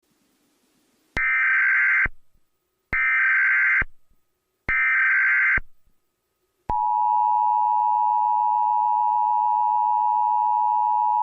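Emergency Alert System SAME header: three short bursts of screeching digital data tones, each about a second long. About seven seconds in, the long steady EAS attention tone begins, signalling that an emergency alert follows.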